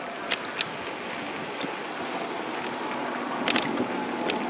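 Bicycle rolling along wooden boardwalk planks: a steady rolling noise with a few sharp clicks and rattles, a pair near the start and more about three and a half seconds in.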